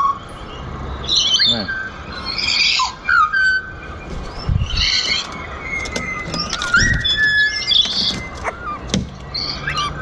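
Pied butcherbirds singing: clear whistled notes that glide up and down, mixed with harsher chattering phrases. Two low thumps come about midway.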